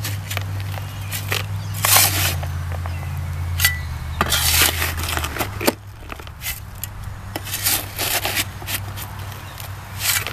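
A steel shovel scraping and digging through loose dirt in a plastic tub, in several separate gritty strokes as the soil is turned over.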